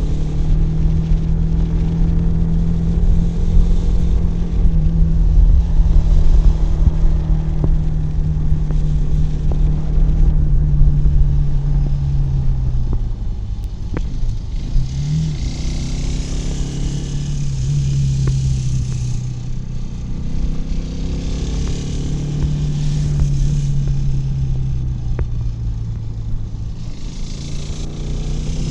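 Kawasaki W175's air-cooled single-cylinder engine and exhaust running under way, holding a fairly steady pitch for the first half. About halfway through the revs drop off with a quick blip, then build and ease again.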